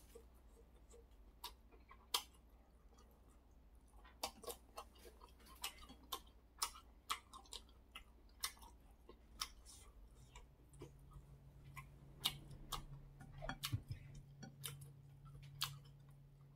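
Quiet eating sounds: irregular sharp wet clicks of chewing and lip smacks, with chopsticks working in a bowl of soup, about one or two clicks a second. A faint low steady hum comes in about ten seconds in.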